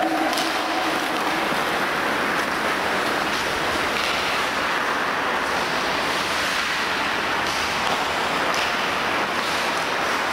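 Ice hockey skate blades scraping and carving across the rink ice in a steady hiss from several skaters, with a few faint clacks of sticks and puck.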